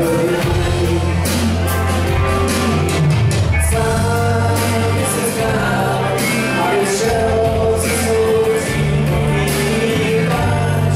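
Live rock band playing a song on electric guitars, bass and drums, with singing and long held bass notes.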